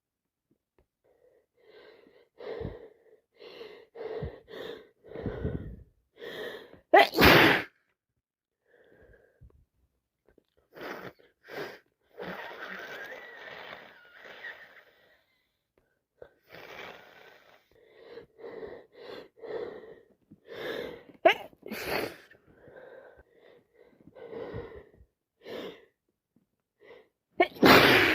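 A person sneezing again and again from a cold and allergies, with many short breathy sounds between the sneezes. The loudest sneezes come about seven seconds in, twice around twenty-one to twenty-two seconds, and once at the very end.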